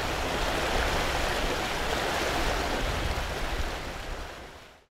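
Water rushing in the wash of a motor yacht under way: a steady noisy rush with a low rumble underneath, fading out over the last half second.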